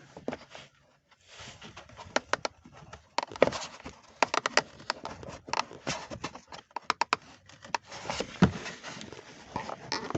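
Irregular plastic clicks, taps and scrapes as a number plate light and its electrical connector are worked and unclipped from a removed rear bumper.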